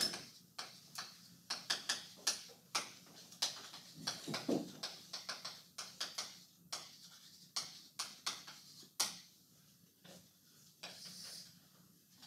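Chalk writing on a blackboard: quick, irregular taps and scratches of the chalk, stopping about three-quarters of the way through. Near the end comes a brief rustle of paper.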